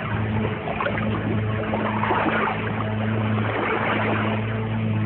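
Dance-routine backing track at a stretch of sound effects rather than beat: a steady low engine-like drone under a dense, watery wash, with motorboat-and-water sounds.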